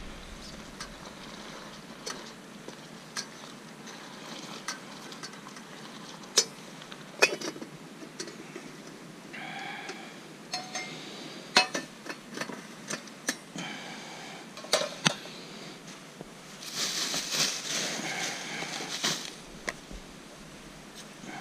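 Irregular light clicks, clinks and knocks of objects being handled, with a few seconds of rustling hiss starting about seventeen seconds in.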